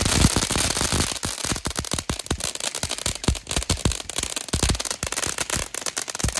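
Ground fountain firework going off: a dense, irregular run of sharp crackling pops, many a second, with a heavier pop right at the start.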